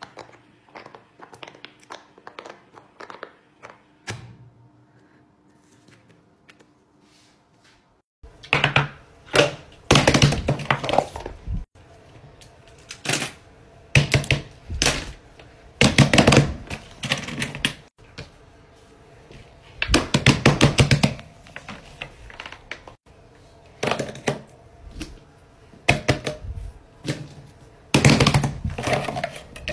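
A quick run of small clicks from a rainbow silicone pop-it fidget toy being pressed, then, after a short lull, loud clusters of rapid knocks and clatters that recur every couple of seconds.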